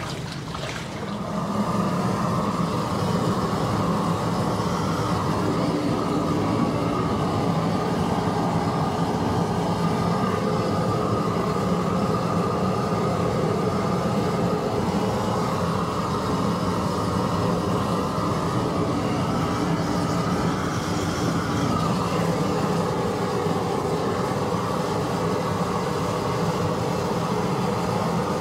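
Gas torch burning with a steady rush that starts about a second and a half in, heating the propeller hub to break it loose from the shaft.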